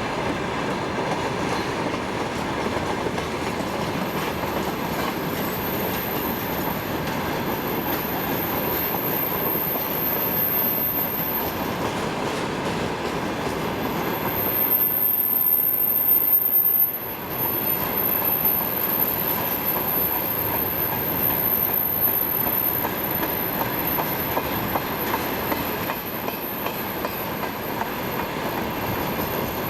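Freight train wagons rolling past on the track with a steady rumble of wheels on rail. The sound grows louder around fifteen seconds in and drops suddenly about two seconds later.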